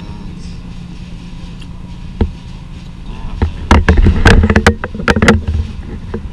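Steady low hum of the room, with a single click about two seconds in and then a cluster of knocks and rustles in the second half as the handheld camera is picked up and swung round.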